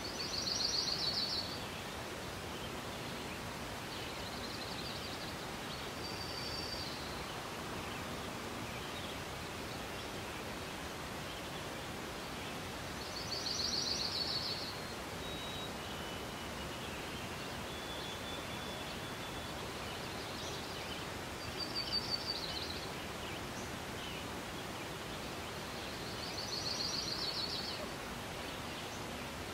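Steady outdoor background noise with a small songbird repeating a short, high trilled phrase about every six or seven seconds, and faint thin whistled calls in between.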